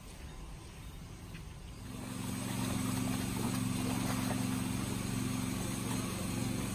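Koi carp splashing and churning at the pond surface as they crowd together to feed, starting about two seconds in, over a steady low hum.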